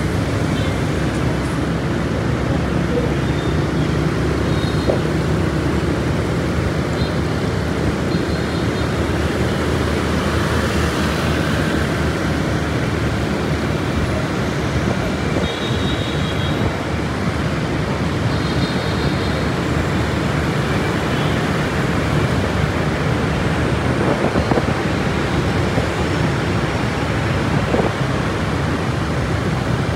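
Steady city traffic noise heard from a moving motorcycle: engines and tyre and road rumble, with a few faint, brief high tones now and then.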